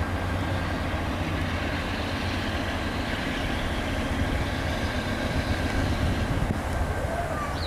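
BNSF diesel locomotives hauling a double-stack intermodal freight train as it approaches, with a steady low engine rumble.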